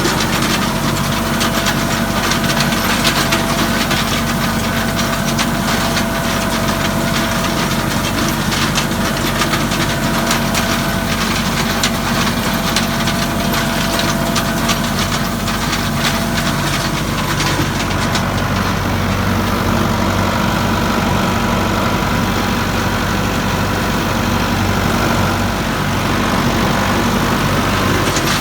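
Farm tractor engine running at a steady speed, with a constant rattle of hay machinery over it.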